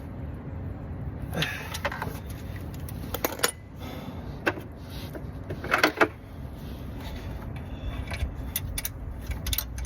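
Socket wrench with a swivel extension turning out a starter-motor mounting bolt: scattered sharp metallic clicks and clinks, a cluster about six seconds in and a quick run of clicks near the end, over a steady low rumble.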